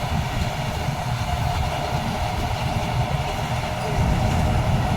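Paddy combine harvester running: a steady machine drone, heavy in the low end, with a faint steady whine over it.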